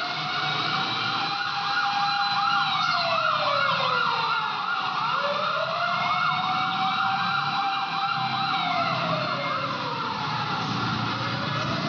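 Fire truck sirens sounding as it passes: a fast warbling yelp runs over a slow wail that rises and falls in long sweeps. The yelp drops out near the end while the wail carries on.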